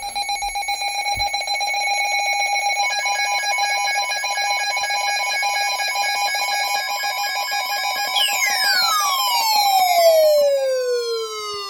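Emergency alert alarm tone: several steady high tones over a rapidly pulsing lower tone, with more tones joining about three seconds in. From about eight seconds in, the tones slide steadily downward in pitch.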